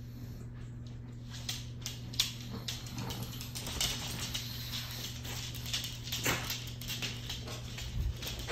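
Dog claws clicking and tapping on a hard wooden floor as the dogs move about, scattered irregular clicks that get busier after the first couple of seconds, over a steady low hum.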